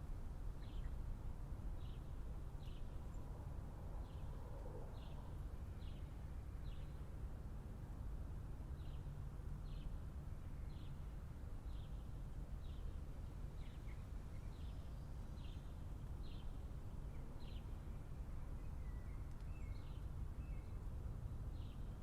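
Steady low rumble of city traffic, with a small bird chirping over it, short high chirps about once a second, and a few brief gliding calls near the end.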